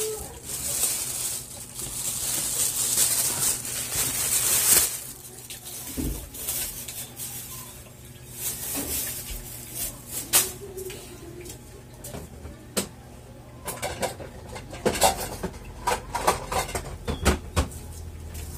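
A plastic bag rustling for about five seconds, then scattered light clicks and knocks of tableware on a table, coming thick and fast near the end.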